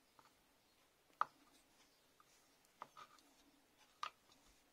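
Kitchen knife slicing through a hard-boiled egg, the blade tapping the wooden cutting board in a few faint, sharp clicks: once about a second in, twice near three seconds, once near the end.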